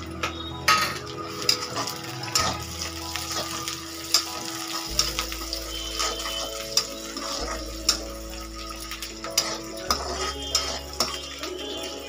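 Steel spoon clinking and scraping against a steel kadhai at irregular moments, stirring onions, garlic and green chillies frying in oil.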